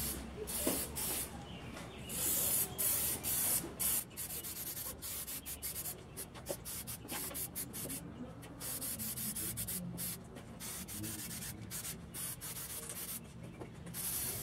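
Aerosol can of spray lacquer hissing in repeated short bursts as a finish coat goes onto wooden game boards.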